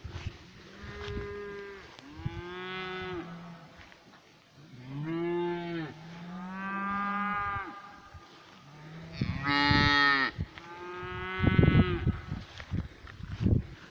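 Herd of cattle mooing: about six long moos from several cows at different pitches, some overlapping. Bursts of rough noise near the end.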